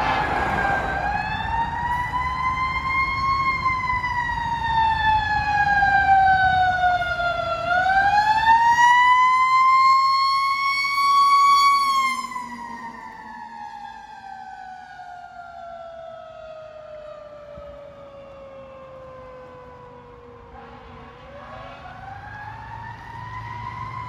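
Fire truck's mechanical Q-siren wailing: its pitch climbs and falls twice as it is spun up and let coast, then, as the truck goes past and away, it winds down in one long falling glide and starts to spin up again near the end.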